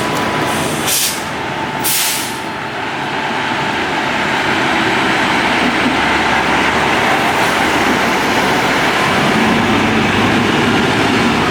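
Fire department ladder truck: three short air-brake hisses in the first two seconds, then the truck's engine running and building steadily louder as the rig gets under way.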